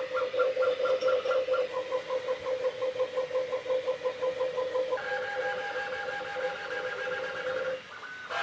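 Bambu Lab 3D printer's stepper motors humming in pitched pulses, about five a second, as the print head moves back and forth while printing. The pitch steps down about two seconds in and changes again about five seconds in, and the motion stops just before the end.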